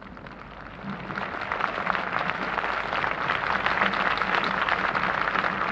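A large crowd applauding, building up about a second in and then holding steady as a dense patter of clapping.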